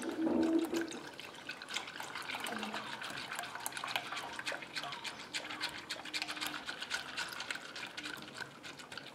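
Silicone whisk beating cornstarch into cold milk in a stainless steel saucepan: steady swishing and sloshing of the liquid with a quick patter of small ticks, dissolving the cornstarch before the pan is heated.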